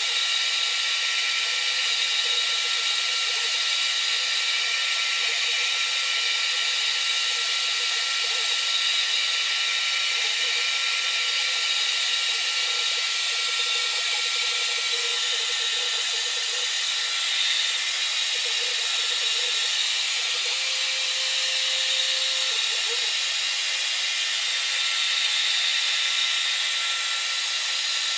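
A power tool running steadily without a break, a constant whirring hiss with a few fixed tones in it.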